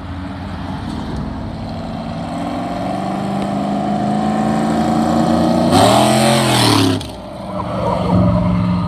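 A loud car accelerating hard along the road toward the listener, its engine note climbing steadily, then passing close about six seconds in with its loudest moment and the pitch bending down. The sound cuts off abruptly about a second later, leaving lower engine noise from other vehicles.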